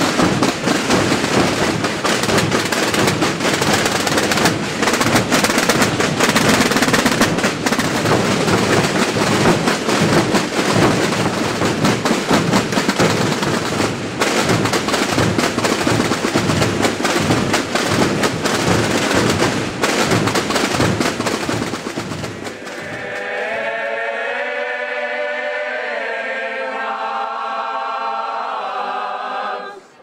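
Massed Aragonese Holy Week tambores beaten together in a dense, continuous roll of strokes, stopping abruptly about three-quarters of the way through. A group of men then sings an unaccompanied slow copla with long held notes.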